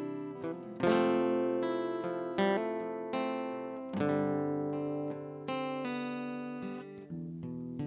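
Acoustic guitar strumming slow, sustained chords, each ringing out before the next.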